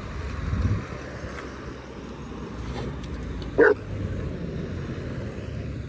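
A dog barks once, short and loud, about three and a half seconds in, over a steady low rumble of vehicle engine and traffic noise.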